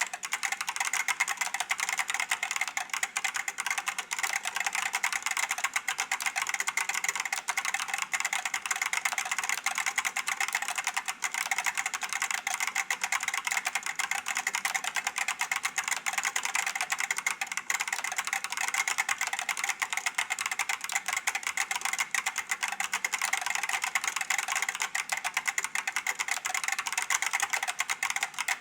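Continuous fast typing on an IBM 5576-002 keyboard with Alps SKCP "plate spring" switches: a dense, unbroken stream of light, bright key clicks with little low thump, without pauses.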